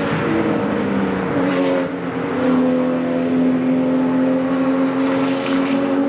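Two Porsche 911 race cars' flat-six engines under hard acceleration as they pull away uphill. A steady, loud engine note with a brief dip about two seconds in.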